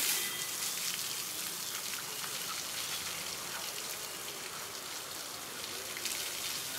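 Water from a hose spraying steadily and splashing onto an elephant and the wet concrete floor as the elephant is washed.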